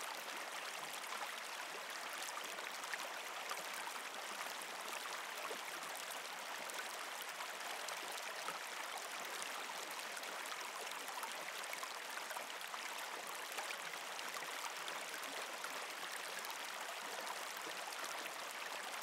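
Steady flowing-water ambience like a running stream: an even rushing sound that does not change.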